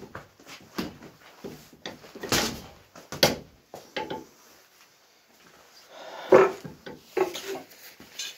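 A hanging heavy punching bag being struck: a series of irregular thuds and slaps, the hardest hit about six seconds in.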